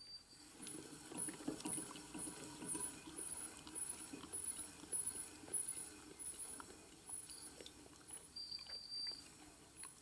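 Harley-Davidson flywheel assembly being turned slowly by hand on a truing stand's centers, metal turning against metal with a faint high tick that repeats about two to three times a second and slows slightly toward the end, over a low gritty rumble.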